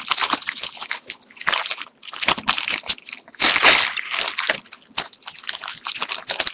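Foil wrapper of a jumbo trading-card pack crinkling and tearing as it is ripped open by hand, in a dense run of irregular crackles.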